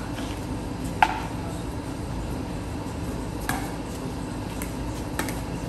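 Pickleball paddles hitting a plastic ball during a rally: sharp, short knocks spaced a couple of seconds apart, the loudest about a second in.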